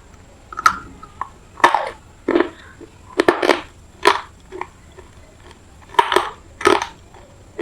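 Close-up crunching as a semi-wet, gritty piece of pure red clay is bitten and crushed in the mouth: a series of sharp, irregular crunches.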